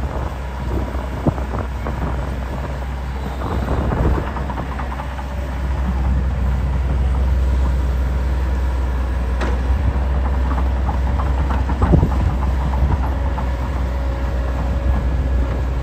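Hitachi Zaxis 130 tracked excavator's diesel engine running with a steady low rumble as the machine tracks up a soil heap, with occasional sharp clanks from its steel tracks.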